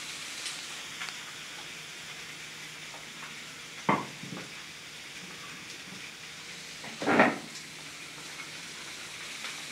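Meat frying on a griddle: a steady sizzle. Two louder knocks come about four seconds and seven seconds in.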